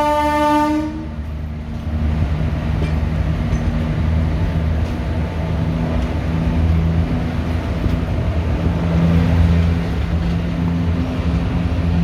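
WAG5 electric locomotive horn sounding, cutting off about a second in. Then ICF passenger coaches running on the track, a steady low rumble with a hum that comes and goes and a few faint clicks.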